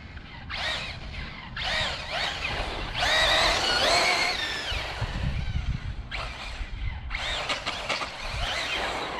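Losi 8ight-E electric 1/8-scale buggy's brushless motor and drivetrain whining in about five bursts, the pitch rising and falling as the throttle is punched and released, with the longest run about three seconds in.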